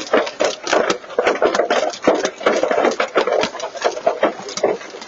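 Hailstones pelting a truck's body in a rapid, irregular clatter, many hits a second, over a steady hiss.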